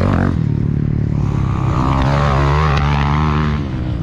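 Motorcycle engine running at a steady speed, with a second, wavering engine note rising and falling from about halfway through until shortly before the end.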